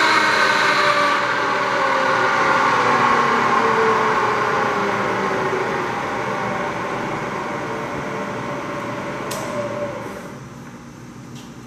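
Bridgeport Series 1 milling machine's variable-speed spindle head running, its whine falling steadily in pitch and getting quieter as the spindle is slowed, then dropping away about ten seconds in. A couple of light clicks come near the end.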